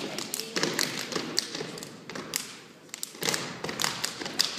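Boots stomping on a stage floor in a step-dance routine: a fast, uneven run of knocks and thuds, easing off briefly a little past halfway.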